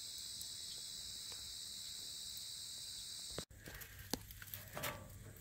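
Steady, high-pitched chorus of insects. It cuts off abruptly about three and a half seconds in and is followed by a few faint scattered taps.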